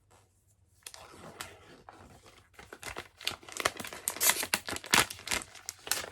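Packaging of a box of sheet face masks crinkling and tearing as it is opened by hand. It is a dense crackle that starts about a second in and grows louder and busier in the second half.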